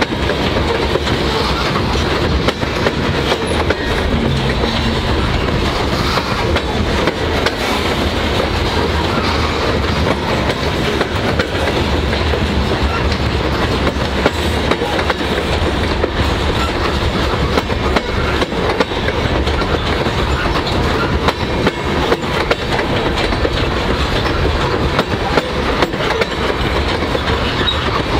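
Loaded covered hopper cars of a grain train rolling past: a steady rumble with the continual clatter of steel wheels on the rails.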